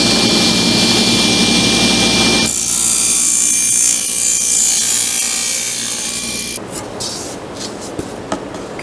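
Table saw running and cutting a thin plywood panel, with a steady high whine; the sound of the cut changes about a third of the way in. It stops abruptly about two-thirds in, followed by a few light knocks.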